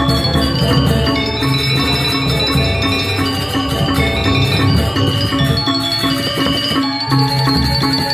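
Balinese gamelan playing, with many bronze metallophones ringing together in dense, overlapping tones.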